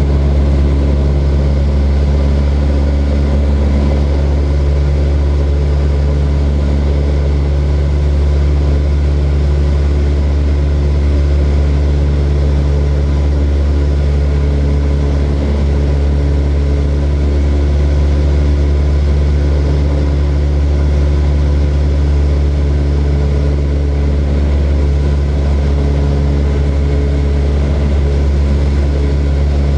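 Small propeller airplane's piston engine running steadily in flight, an even, unchanging drone with a deep hum and overtones above it.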